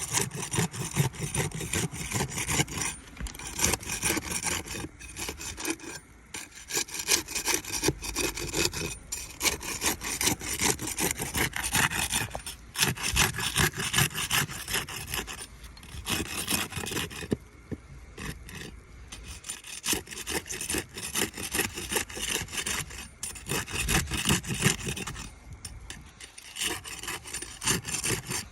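A flat bar worked back and forth under asphalt shingles to break their sealant strips and unseal them: a long run of rapid scraping, rasping strokes, broken by a few short pauses.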